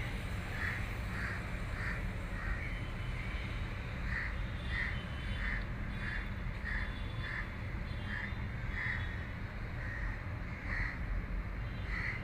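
A bird calling in a long series of short, evenly spaced calls, about one and a half a second, over a steady low hum.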